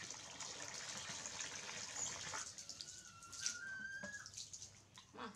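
Water from a hose pouring into a plastic basin, a steady rush that stops about two and a half seconds in. A thin high steady tone follows for about a second and a half.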